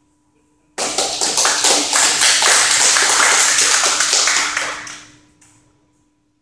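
A small group applauding, starting suddenly about a second in and dying away after about four seconds.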